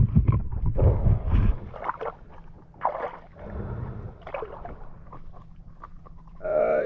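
Water splashing and sloshing as a speared snapper is handled at the surface, in scattered short bursts about once a second. A heavy rumble of the camera being moved about fills the first second and a half, and a brief voice-like sound comes near the end.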